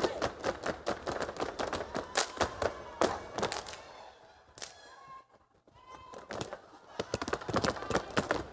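A step team stepping in unison on a wooden stage: quick rhythmic stomps and claps, dropping to a brief lull about five seconds in before the beats pick up again.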